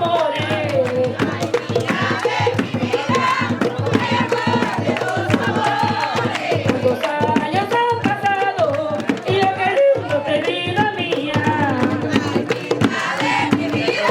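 Panamanian tamborito music: hand drums beating a dense, steady rhythm under a woman's singing voice.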